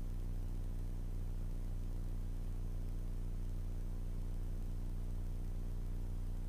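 Grumman Tiger's four-cylinder Lycoming O-360 engine and propeller at cruise power, heard from the cockpit as a steady low drone.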